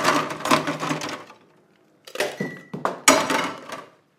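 Ice cubes clattering into a metal cocktail shaker tin as it is filled with ice. After a short pause come a few sharp knocks and clinks of ice and metal, one with a brief ring.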